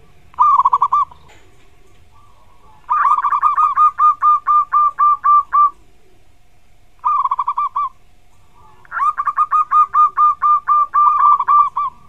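Zebra dove (perkutut) cooing in rapid staccato phrases. There are two short bursts and two longer runs of about a dozen quick notes each.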